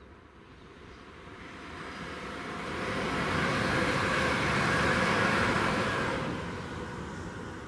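EMR Connect Class 360 Desiro electric multiple unit passing at speed. The rush of wheels on rail builds for a few seconds, is loudest for about three seconds as the unit goes by, then fades away.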